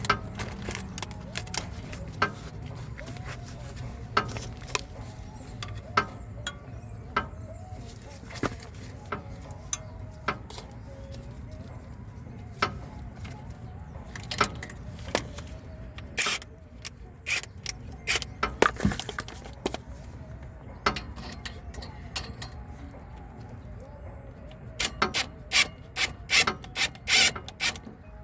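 Metal clicks, clinks and scraping of hand tools at work on a car's disc brake caliper and pads, with a quick run of sharp clicks near the end.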